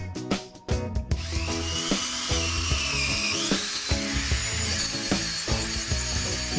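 A power tool runs with a high whine, starting about a second in and stepping up in pitch around the middle, over background music with a steady beat.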